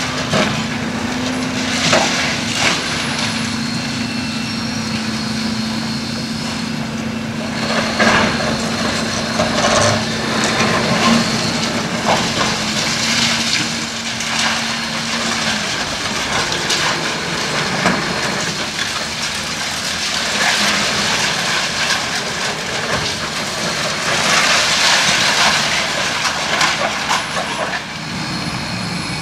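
Building demolition in progress: a heavy machine runs with a steady hum that stops about halfway through, over repeated crunching and clattering of breaking debris.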